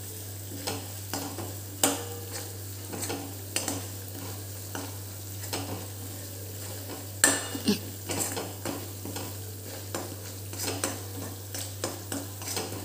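A steel spoon stirring and scraping around a metal kadai, mixing a spiced onion-garlic-ginger paste that is frying in oil. There is a faint steady sizzle, and the spoon makes irregular clicks and scrapes against the pan, loudest about two seconds in and again around seven seconds in.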